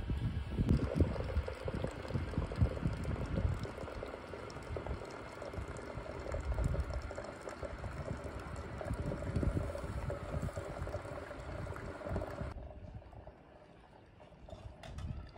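Wood-fired samovar boiling water, a steady bubbling and rushing with uneven low rumbles, becoming much quieter near the end.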